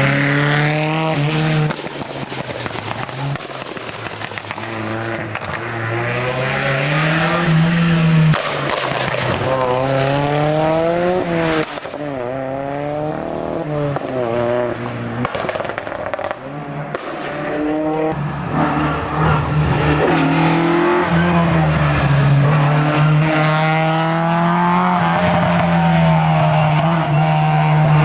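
Historic rally car engines revving hard, the pitch climbing and dropping again and again through gear changes as the cars drive the special stage.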